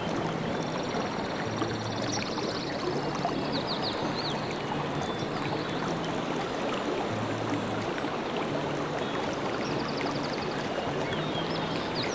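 Creek water running steadily, under soft background music with slow alternating low notes. A few short high chirps come in near the start and again near the end.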